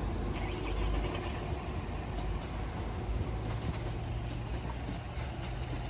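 Passenger train passing over a level crossing: a steady rumble of wheels and running gear, with a low hum joining about three seconds in.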